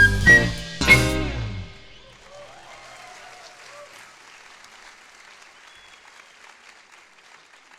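A band of flute, bass, guitar, drum kit and percussion ends a tune on three loud closing hits that ring out and fade, then an audience applauds.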